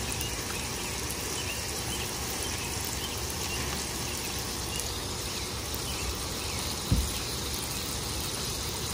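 Beef slider patties and onions sizzling steadily on a Blackstone flat-top griddle. A short, low thump about seven seconds in.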